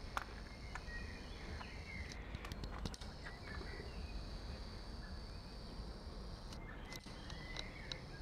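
Outdoor garden ambience: small birds chirping in short calls, with scattered clicks and light steps on a pebble-concrete patio as someone walks with the camera.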